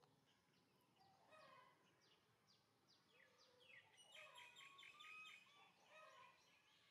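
Faint bird calls from the forest canopy: a series of quick downward-sweeping chirps, then a busier run of rapid twittering notes about four seconds in.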